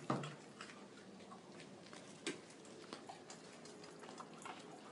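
Dogs eating dry food from metal bowls: scattered, irregular clicks and crunches of kibble and bowls being nosed.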